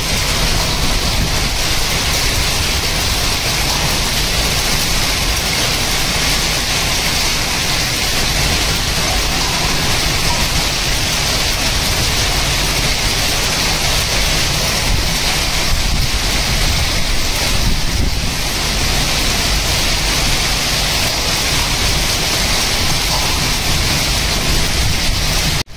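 Heavy hail and rain striking a concrete rooftop: a steady, dense hiss of drops and small hailstones hitting the surface, with a steady low rumble beneath.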